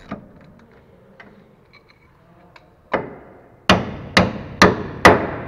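Hammer blows on steel, knocking the lower ball-joint clamp bolt out of the steering knuckle: one strike, then four louder ones about half a second apart, each ringing briefly.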